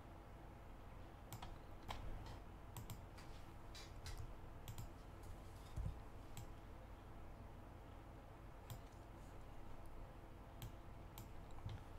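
Scattered clicks of a computer mouse and keyboard, a dozen or so short sharp clicks spread irregularly over a faint steady low hum.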